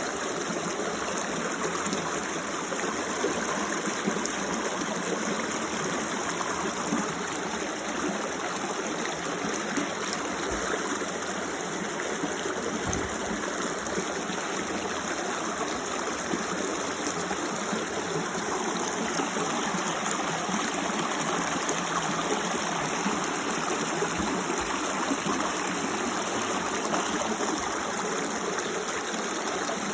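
Creek water running steadily over rocks, an even rushing and trickling.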